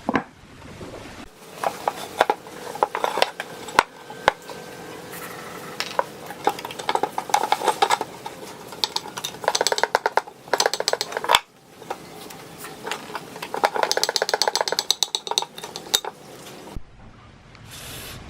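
Metal scraping and clinking from hand work on rusty fan parts: several bursts of quick, evenly repeated strokes with pauses and a few sharp knocks between them.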